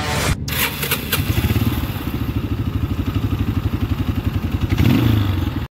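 Motorcycle engine running at low revs, its exhaust pulses even and distinct, picking up slightly shortly before it cuts off.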